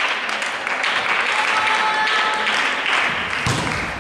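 Spectators clapping, with a thud of a volleyball being struck about three and a half seconds in.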